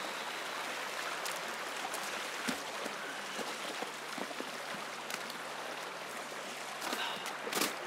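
Small creek running steadily, with scattered crunches and snaps of footsteps through dry grass and brush, and a louder knock near the end.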